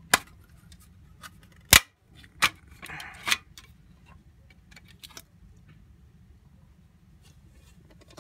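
Clear plastic CD jewel case being handled and pried apart to free the tray. There are several sharp plastic clicks and snaps, the loudest about two seconds in, a brief scrape about three seconds in, and then fainter ticks.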